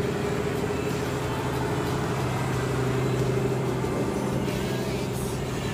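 Diesel engine of a bagang fishing boat running steadily, a constant low drone at an unchanging pitch.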